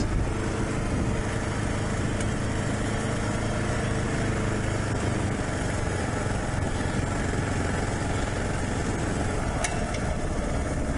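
Dual-sport motorcycle engine running at an even pace while riding a dirt road, with one short sharp click near the end.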